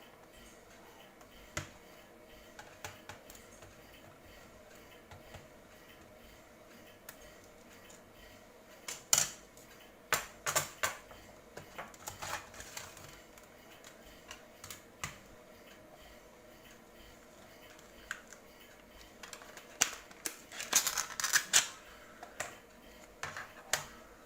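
Scattered sharp clicks and light clatters of hands working on a laptop's plastic case and small parts, coming in two busy spells, one in the middle and one near the end.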